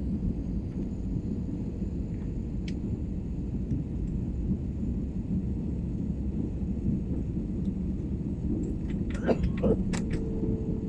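Steady low cabin rumble of an Airbus A320-family airliner on short final, then a few sharp knocks about nine to ten seconds in as the wheels touch down on the runway, with a steady hum coming in just after.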